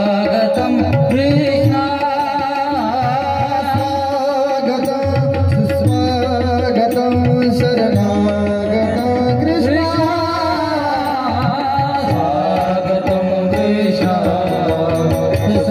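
Devotional Indian music: a melody sung with sustained, sliding notes over a steady tabla rhythm.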